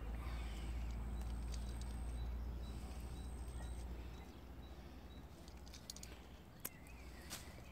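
Outdoor ambience: a low rumble for about the first four seconds, faint high bird chirps, and two short sharp clicks near the end.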